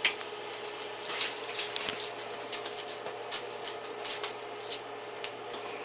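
Scattered light clicks and taps of kitchen handling over a faint steady hum, with a sharper click right at the start.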